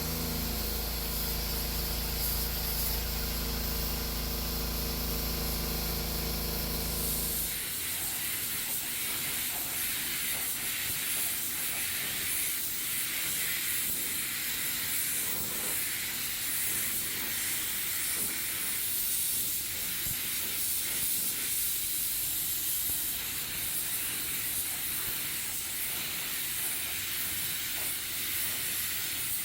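Paint spray gun hissing steadily as automotive paint is sprayed. Under it a steady motor hum runs for the first several seconds and stops suddenly about seven seconds in.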